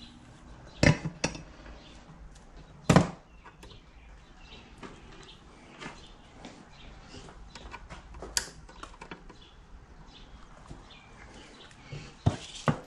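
Sharp clicks and knocks with small ticks between, from the soldering gun, tools and connector being handled on the work surface while a connector is pre-tinned. Two louder knocks come about a second and three seconds in, and two more near the end.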